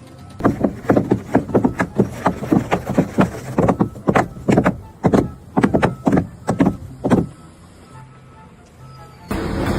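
A fast, irregular run of sharp knocks or taps, about three or four a second, that stops after about seven seconds.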